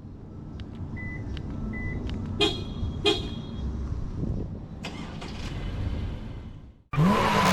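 Two short car horn chirps about half a second apart over a low outdoor rumble. Loud electronic music with a heavy beat cuts in near the end.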